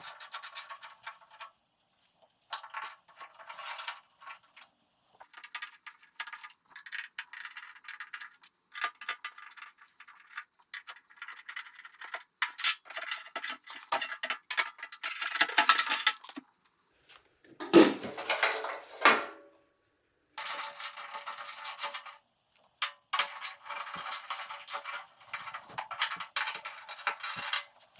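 Metal clinking and clattering from hand tools and small door parts being handled and removed during disassembly of a car door, in stretches broken by short silences. A louder, deeper clunk comes about eighteen seconds in.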